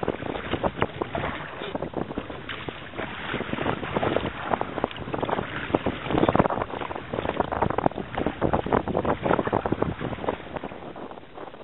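Wind buffeting the microphone in uneven gusts over choppy sea water lapping around a kayak.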